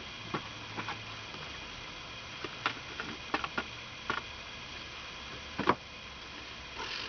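Scattered light clicks and knocks of small hard objects being handled, about a dozen at uneven intervals, the loudest one shortly before the end, over a steady faint hum.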